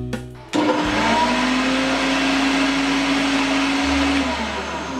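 Electric blender (mixer-grinder) motor starting up about half a second in and running at full speed, dry-grinding chunks of ginger and peeled garlic cloves with salt, with no water. Its hum rises briefly as it spins up, holds steady, then winds down near the end.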